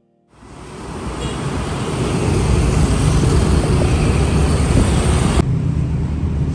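Traffic and road noise from riding along a city street at night: a dense rush of engine and wind noise that fades in over the first two seconds. It changes abruptly just past five seconds in.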